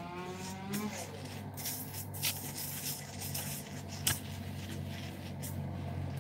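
Hands scrubbing shampoo lather through short wavy hair: soft wet rubbing and squishing with a few sharper clicks, over a steady low hum.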